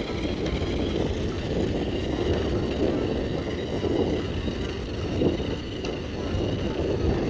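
Toy remote-control car running fast: a steady high motor whine over the noise of its wheels on the ground.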